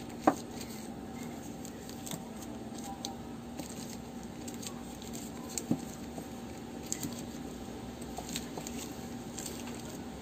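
Handling noises of paper-wrapped laundry soap bars being shifted in a plastic organizer tray: soft rustles and a few small knocks, the sharpest about a quarter second in and another near six seconds, over a steady faint hum.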